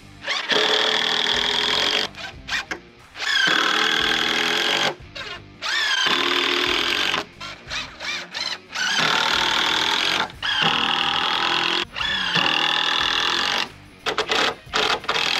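Cordless drill driving screws into lumber in about six separate runs of one to two seconds each, the motor whine rising in pitch at the start of each run and holding steady while the screw goes in.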